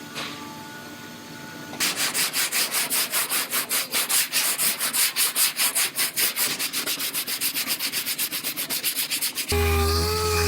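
Hand sanding on a truck's bedside sheet metal: rapid back-and-forth strokes at about six a second, beginning about two seconds in. Near the end the strokes stop and a power tool starts up with a steady, slightly wavering whine.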